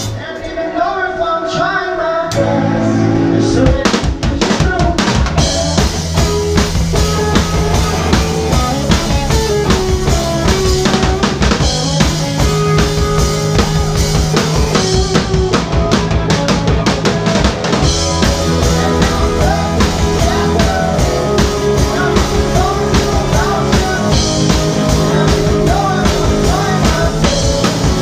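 A rock band playing live: drum kit with snare and bass drum, bass and electric guitar, an instrumental passage without vocals. The sound is thinner for the first two seconds or so, then the full band comes in.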